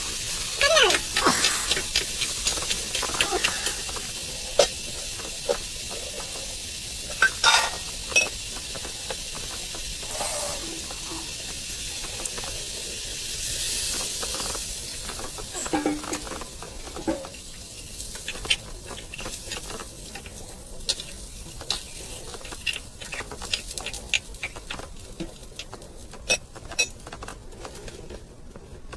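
Food sizzling in a pan over a fire and being stirred, with a metal spoon scraping and clinking against the pan. The sizzle is strongest in the first half and dies down after about 17 seconds, leaving scattered clinks.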